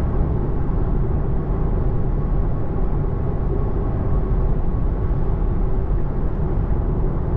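Steady road and tyre noise from a 2024 Tesla Model 3 Long Range driving on a wet road, heard inside the car's cabin.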